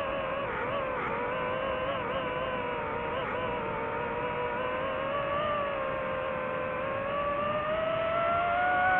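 DJI FPV drone's motors and propellers whining steadily, the pitch wobbling with quick throttle changes, sagging gently and then climbing near the end.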